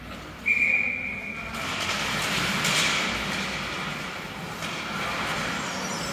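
A referee's whistle blown once, a single steady shrill tone lasting about a second, followed by a steady hiss of noise from play.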